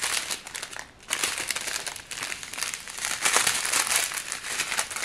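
Small plastic bags of diamond-painting drills crinkling as they are handled. The crinkling drops away for a moment just before a second in, then goes on steadily.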